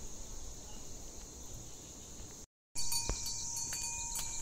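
A steady, high-pitched chorus of insects, crickets or cicadas. It breaks off for a moment about two and a half seconds in, then returns with a single knock and a thin ringing tone under it.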